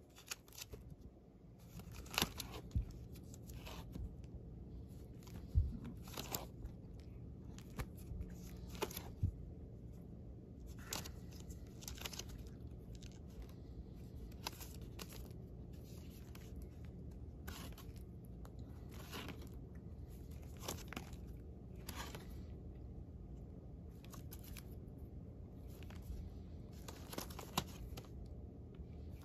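Vinyl records in plastic outer sleeves being flipped through by hand in a record bin: a run of short crinkling plastic swishes, about one a second, as each album is tipped forward. A few louder knocks of records against each other come in the first ten seconds.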